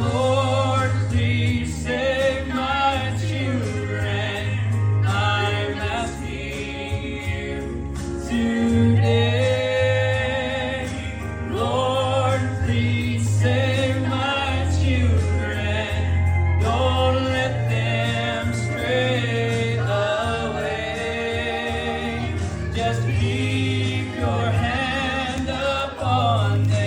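A gospel song: a singer with strong vibrato over accompaniment with a steady bass line.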